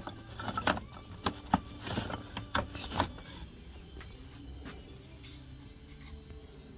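Cut wooden hive-frame parts clacking and knocking against each other as a hand rummages through a pile of them on a shelf, a quick run of sharp knocks over the first three seconds, then it goes quiet.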